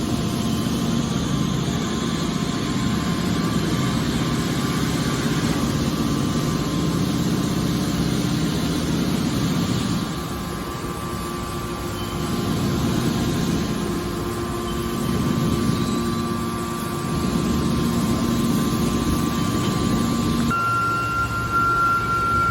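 Hydraulic scrap metal baler running: a steady machine drone with a constant hum. It eases off slightly about ten seconds in, and a higher steady whine joins near the end.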